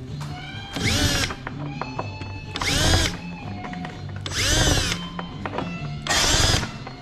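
Power drill with a twist bit run in four short bursts into holes in aluminium sheet, deburring the holes. Each burst spins up and winds back down in pitch.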